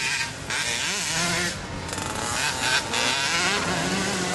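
Small dirt bike engine revving up and down as it is ridden around a motocross track, its pitch rising and falling repeatedly.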